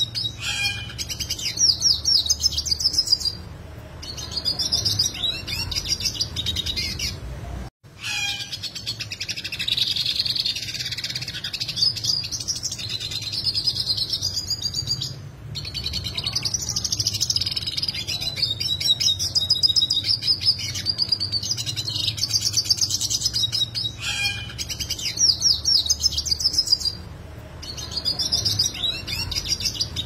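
Yellow siskin singing a long, complex, high-pitched twittering song full of fast, sharp trills ("roll tajam"), broken only by brief pauses.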